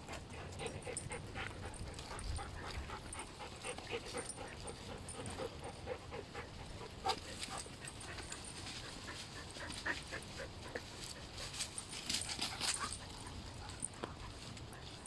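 Dogs whining in short bursts, over scattered rustling and clicking, with a busier patch of noise near the end.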